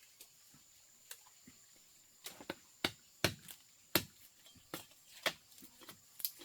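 Knife chopping and peeling cassava roots: a quiet start, then from about two seconds in a run of irregular sharp chops and clicks, a few strong knocks among them.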